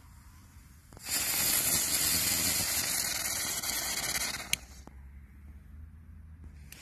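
A small 'Tolle Biene' youth-firework spinner going off: a loud, even hiss that starts about a second in and lasts about three and a half seconds, ending with one sharp click.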